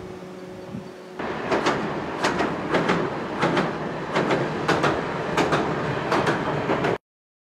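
Fukui Railway low-floor tram running at speed over a steel girder river bridge: a steady rumble with the wheels clacking over rail joints, often in quick pairs. The sound starts about a second in and cuts off abruptly near the end.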